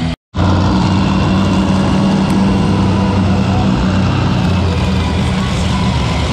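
Monster truck engine running steadily at a low, even pitch, cutting in after a split-second gap at the start.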